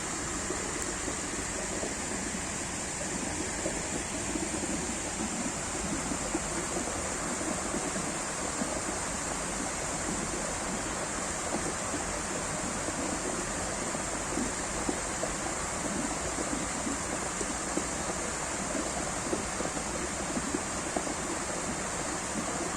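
Flowing water rushing steadily, an even noise without breaks.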